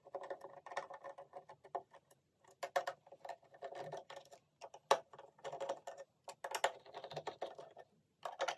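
Fingers and fingernails picking and scratching at the plastic housing of a Philips Fidelio E5 surround speaker, a run of small irregular clicks and scratches with one sharper click about five seconds in.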